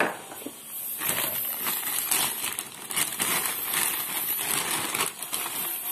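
Clear plastic bag crinkling and rustling continuously as hands unwrap a new fuel level sender from it.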